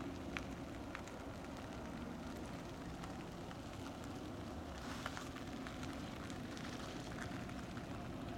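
Faint, steady low rumble of a distant freight train of oil tank cars rolling around a curve, with a few light ticks scattered through it.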